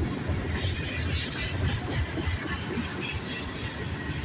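Freight train cars, including tank cars, rolling past close by: a steady rumble of steel wheels on the rails.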